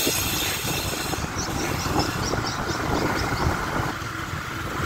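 Honda Future 125 motorcycle being ridden along a street: wind rushing over the bike-mounted microphone with road and engine noise underneath. A short run of faint high chirps comes in about a second in.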